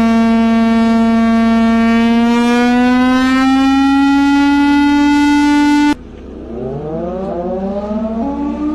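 Warning siren sounding one loud, steady tone that slowly rises a little in pitch, then cuts off abruptly about six seconds in. Straight after, another siren begins winding up, several tones rising together.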